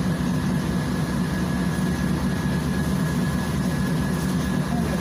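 Volgabus 5270G2 city bus's Yuchai YC6L280N natural-gas engine idling while the bus stands still, heard from inside the passenger cabin as a steady low hum, with a faint steady high-pitched whine above it.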